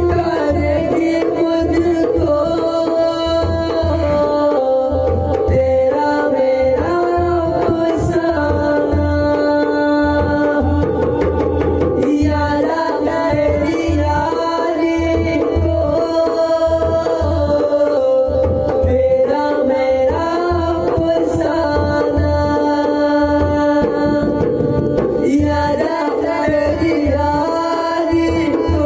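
Male vocalist singing a Hindi devotional-style song with dholak drumming underneath, the drum keeping a steady rhythm of low strokes under long held notes.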